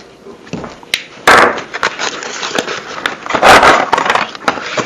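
Packaging being handled as the pole saw is taken out of its box: rustling and scraping, louder twice, about a second in and again past three seconds, with scattered small clicks and knocks between.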